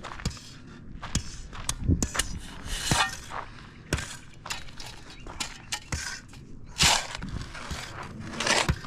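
Shovel digging into hard, dry, rock-like dirt: irregular sharp clacks of the blade striking the ground, with a few longer scrapes.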